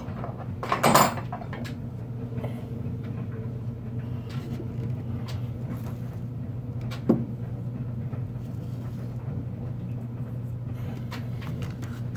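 Steady low hum from a washer and dryer running on the floor below, with a loud knock about a second in and a sharp click about seven seconds in, among fainter clicks of a screwdriver working at a circulator pump's electrical cover.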